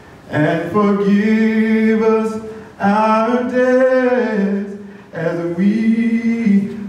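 A solo voice singing slowly: three long, held phrases with short pauses for breath between them.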